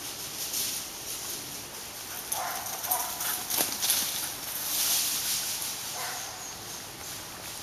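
Footsteps running and crunching through dry leaf litter and wood chips, the crunching loudest and busiest around the middle.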